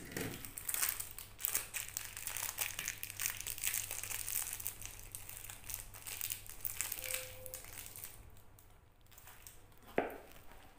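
Clear plastic wrapping crinkling and rustling as it is handled by hand, with one sharp knock about ten seconds in.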